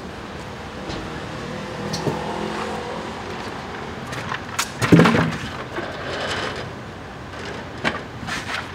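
Street ambience with passing traffic, broken by scattered clicks and knocks; the loudest knock comes about five seconds in.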